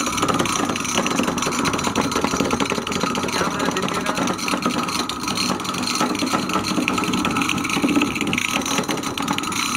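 Homemade battery-powered coconut grinder running steadily, its motor driving the grinding head with a continuous rasping scrape as it grates coconut.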